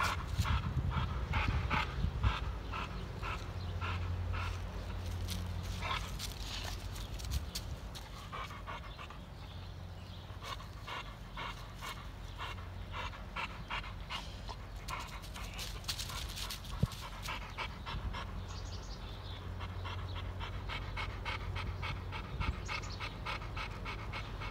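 Adult Rottweiler panting hard, quick breaths at about three or four a second.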